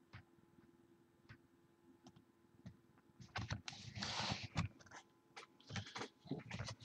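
Faint scattered clicks and taps of hands working a laptop, with a short rustle about four seconds in. The first few seconds are nearly silent.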